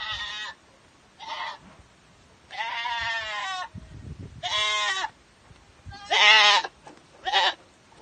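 Goats bleating: about six separate calls with short pauses between them, one of them long and quavering.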